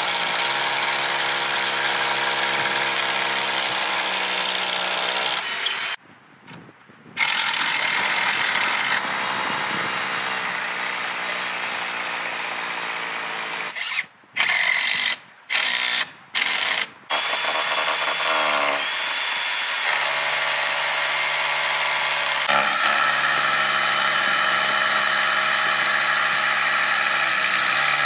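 Handheld power drill running in long steady stretches as workers fasten the wooden station together. The motor whine shifts pitch a few times and cuts out briefly about six seconds in and again several times around the middle.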